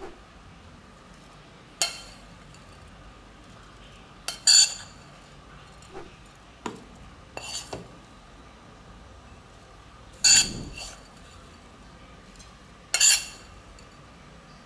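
Metal spoon scooping rolled oats from a ceramic bowl and tipping them into a plastic grinder bowl: several sharp clinks and taps of the spoon against the bowls a few seconds apart, with softer scrapes between.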